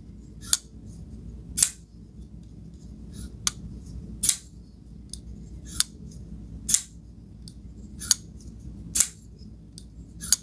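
A Remette Kingfisher flipper knife being flipped open and closed over and over. Its blade snaps into lockup or clicks shut with a sharp metallic click about once a second, about nine in all, showing off the sound of its action.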